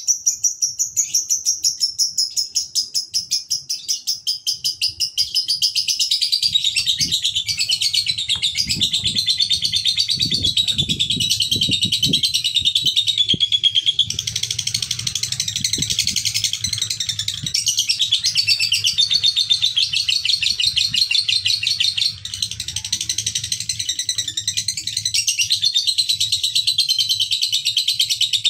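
Male lovebird singing 'ngekek': a long, unbroken, rapid chattering trill whose pitch wavers up and down, with a brief break a little past two-thirds through.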